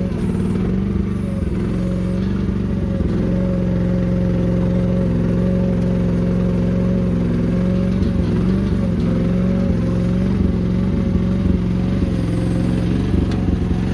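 Mini excavator's engine running steadily at working speed, its pitch wavering slightly now and then.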